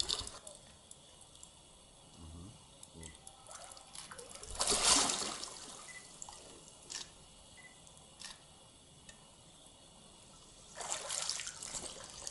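Water sloshing and splashing around a person wading waist-deep, with a loud splash about halfway through and more splashing near the end; quieter drips and ripples between.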